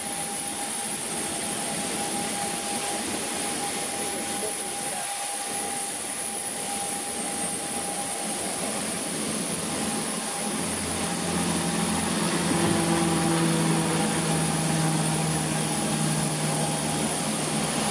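Airport ramp noise beside a parked Boeing 737: a steady rushing hiss with a thin high whine. A lower hum joins about ten seconds in and the noise grows a little louder.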